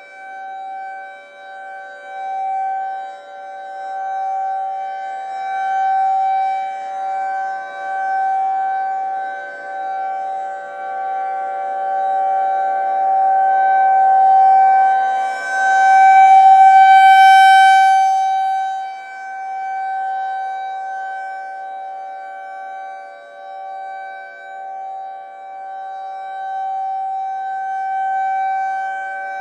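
Federal Signal 2001-SRNB outdoor warning siren sounding a steady full-alert tone, its loudness swelling and fading as the rotating head turns, loudest about halfway through.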